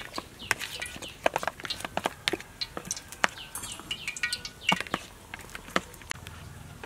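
Metal spoon stirring chicken feet through thick, wet batter in a plastic bowl: irregular sticky squelches and clicks, a few each second.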